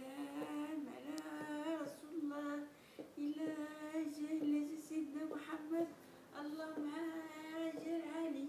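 A woman singing unaccompanied, a Moroccan song of praise to the Prophet Muhammad, in long held, gently wavering phrases with short breaks between them.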